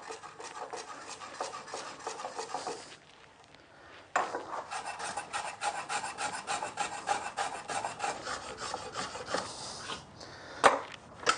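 Block plane taking quick, short scraping strokes across the end grain of a wooden knife block, chamfering the edges so the end fibres don't tear out. There is a short pause about three seconds in, then a longer run of strokes, and a couple of sharp knocks near the end.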